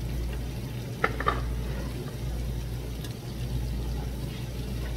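Food sizzling faintly on a tabletop grill pan over a steady low hum, with two quick clinks of metal chopsticks on the pan about a second in.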